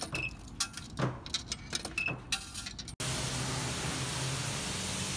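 Coins clinking as they are dropped into a self-service car wash coin box, with two short electronic beeps from the machine. About three seconds in, this gives way to the steady hiss of the bay's high-pressure wand spraying.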